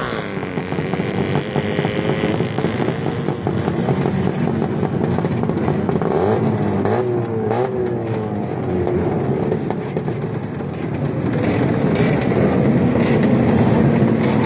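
Motorcycle engines running and revving, their pitch rising and falling in several quick revs a little past the middle.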